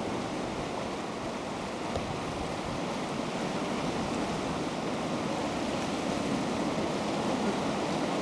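Ocean surf washing in steadily, an even rush of noise that grows a little louder toward the end.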